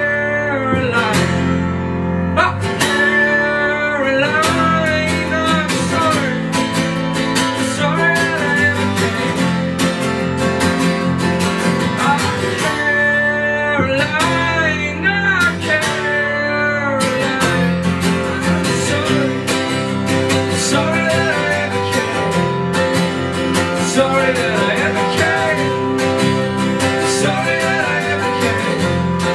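Two acoustic guitars strumming chords in an instrumental break of a drumless acoustic song. A wavering lead melody line rises above them in the first few seconds and again around the middle.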